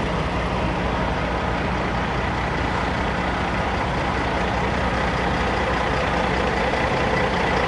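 Steady low drone of parked semi trucks' diesel engines idling, getting slightly louder near the end.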